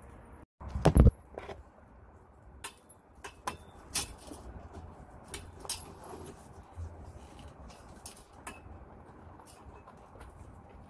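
Handling noise from someone climbing over a metal railing: a loud low thump about a second in, then scattered light clicks, knocks and rustles over a low steady rumble.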